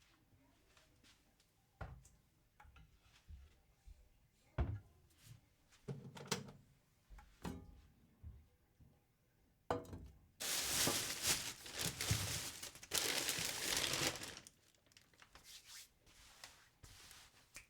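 Kitchen handling sounds: scattered knocks and taps, then two loud bursts of crackling noise, each about two seconds long, followed by a few light clicks.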